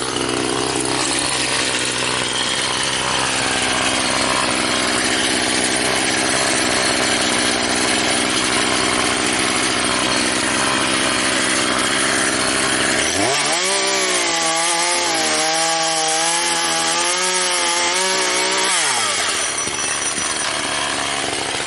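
Gas-engine-powered sawmill running under load during a cutting pass through a log, a loud steady saw-and-engine sound. About thirteen seconds in, the engine pitch climbs and holds with a wavering whine, then drops back about six seconds later.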